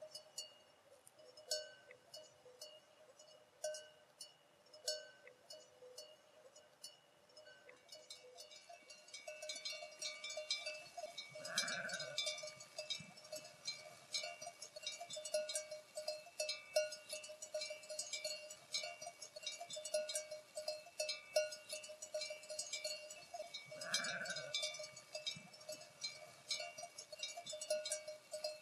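Sheep bells clinking. At first a single bell clinks every second or so, then from about a third of the way in many bells clink together without pause. Sheep bleat twice over the bells.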